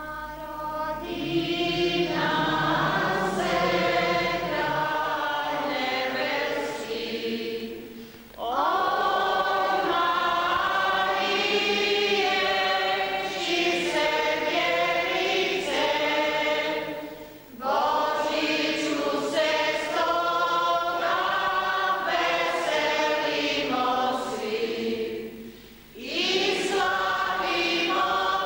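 Church congregation singing a hymn together in long phrases, pausing briefly about every eight or nine seconds.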